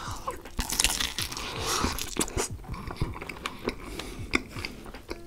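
Close-miked mukbang eating: a sausage coated in cheese sauce being bitten into, then chewed with wet, smacking mouth sounds and sharp clicks.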